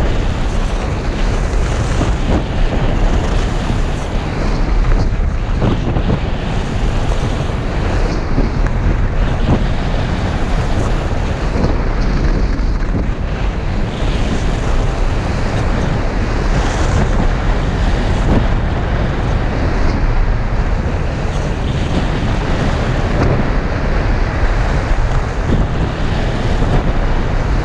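Wind rushing over an action camera's microphone while skiing downhill at speed, mixed with the steady hiss of skis running over groomed snow and a few faint knocks.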